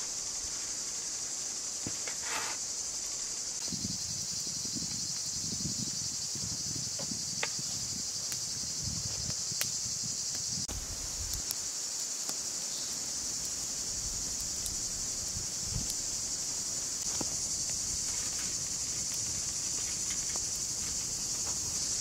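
Steady high-pitched insect chorus in summer woodland, continuous throughout. Over it, soft rustles and small clicks from food being cut and handled close by, busiest in the first half.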